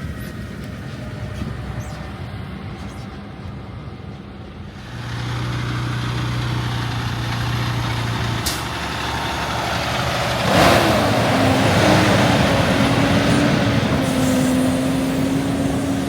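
Heavy diesel machinery engines running, growing louder about five seconds in. About ten seconds in comes a short hissing rush, and a steady whine follows it.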